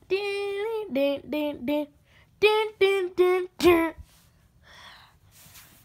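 A child singing a short wordless tune in a string of brief held notes, ending on a falling note about four seconds in.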